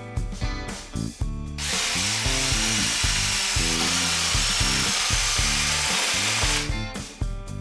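Electric jigsaw cutting a board of wood: a steady, noisy run that starts about one and a half seconds in and stops about a second before the end, over guitar background music.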